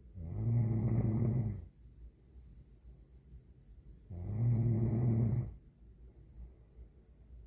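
A young woman snoring in her sleep: two long, low, buzzing snores about four seconds apart, each lasting about a second and a half, with a faint high hiss between them.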